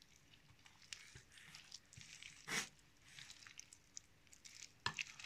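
Spoon stirring chopped salad dressed with mayonnaise in a glass bowl: faint soft squelches and crunches with light clicks, the loudest squelch about two and a half seconds in.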